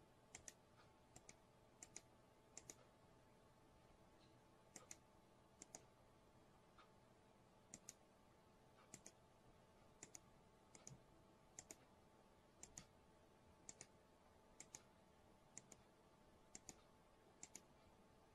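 Near silence with faint clicking on a computer, mostly in quick pairs about once a second, over a faint steady hum.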